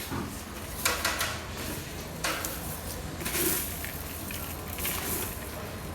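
Food sizzling in a cooking pot with a steady hiss, and a few short louder scrapes of stirring or handling the pot about a second in, a little after two seconds, and between three and four seconds.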